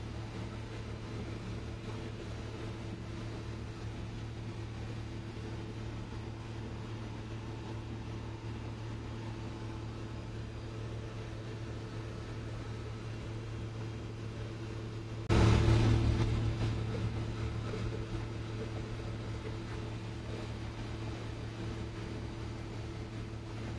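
Steady hum of a ship's engine-room machinery: a low drone holding a few fixed tones. About two-thirds of the way through it suddenly grows louder, then fades back over a few seconds.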